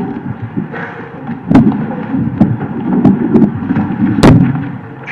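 Handling noise and knocks on table microphones as people get up from a meeting table and move about, with two loud thumps, about a second and a half in and near the end.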